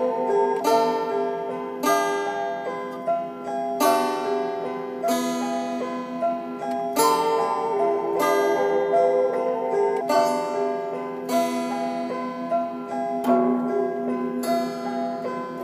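Instrumental music played on plucked or struck strings: a slow melody of ringing notes, each sounding and fading before the next, with a strong note about every second or so.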